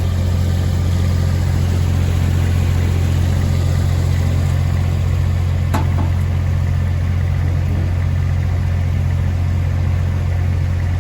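Heavy diesel engine of a recovery truck running steadily at idle while the winch lines hold the load, a deep even hum. One short sharp click sounds a little before the middle.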